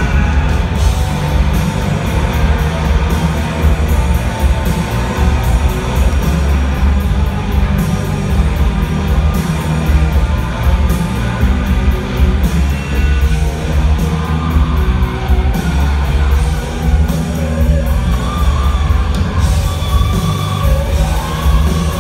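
Live band playing loud rock music, with heavy bass, a steady drum beat and electric guitars.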